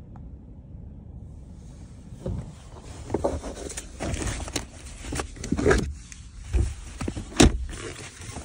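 Handling noise from a phone being moved about against clothing and fabric: rustling and irregular knocks over a low car-cabin rumble, with one sharp knock near the end.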